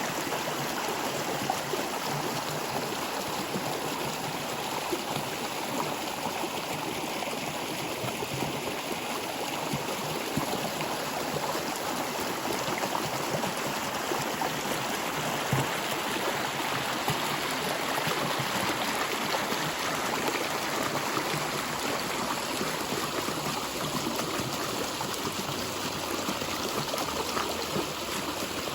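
Water flowing in a stream, a steady rushing and trickling.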